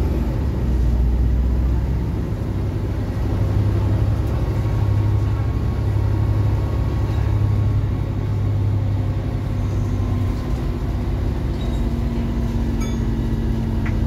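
Diesel bus engine running under way, heard from inside the passenger saloon as a steady low drone. Its note shifts about ten seconds in.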